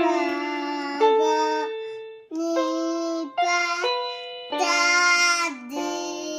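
Papa Fun 49-key toy electronic keyboard playing a short melody of about seven held notes, each starting sharply and holding a steady pitch.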